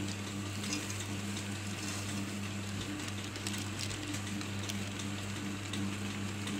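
Chicken, potatoes and peas simmering in sauce in a frying pan on a gas hob over low heat: a faint irregular crackle and patter over a steady low hum.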